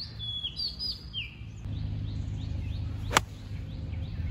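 Birds calling with short gliding whistles, then about three seconds in a single sharp click of a golf club striking the ball on an approach shot of about 100 yards.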